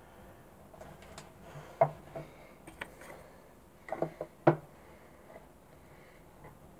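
A few short knocks and clatters of household objects being handled and set down on a table. The loudest come about two seconds in and again in a quick cluster around four to four and a half seconds in.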